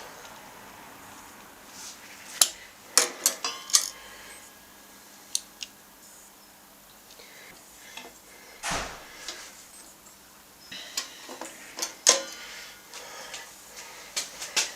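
Scattered sharp clicks and light metallic clinks of small metal tools being handled and set down, with a few quick clusters. There is a duller knock about two-thirds of the way through.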